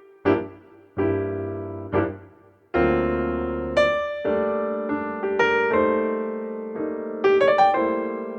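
Background music: a piano playing slow chords that ring and fade, with a pause of a second or so before fuller sustained chords about a third of the way in.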